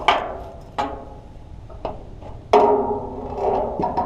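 A series of hollow knocks and thuds, each ringing briefly, as a big blue catfish flops in a landing net against the dock boards. The loudest knock comes a little past halfway, with a longer ring after it.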